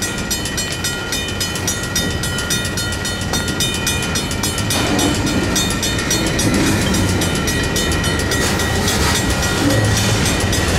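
Railroad crossing bells, a Safetran mechanical bell and a WCH electronic bell, ringing in a fast, steady strike rhythm. Train cars rumble through the crossing beneath them, growing louder about halfway through.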